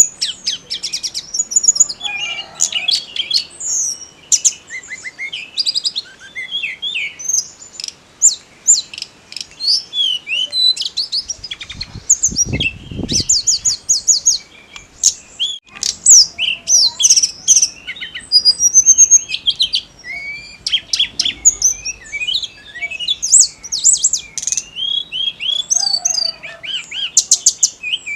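A tledekan gunung singing a busy, varied song of quick chirps, whistled slurs and rapid trills, almost without pause. There is a brief low rumble about twelve seconds in.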